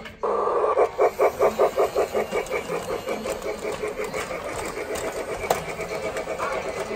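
Lionel Polar Express toy steam locomotive running with a rhythmic chuffing of about five beats a second, strongest in the first few seconds and then weaker, with a single click about five and a half seconds in.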